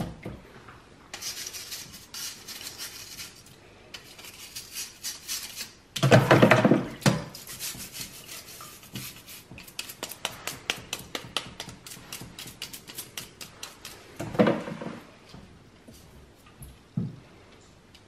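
Stiff bristle brush scrubbing the wet plastic roller housing and window frame of a Shark anti hair wrap vacuum's floor head, in runs of quick back-and-forth strokes, several a second. There is a louder noise of about a second some six seconds in and a shorter one around fourteen seconds.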